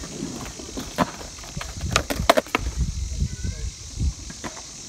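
BMX bike rolling across asphalt: low tyre rumble with a series of sharp clicks and knocks from the bike, the loudest cluster about two seconds in and another knock about four seconds in.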